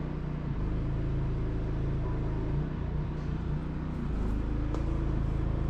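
Solar air conditioner's fan running on its turbo setting: a steady, low mechanical hum.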